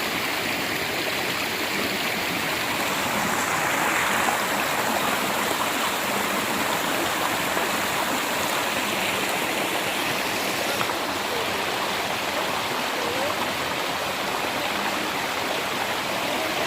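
A creek's water flowing steadily.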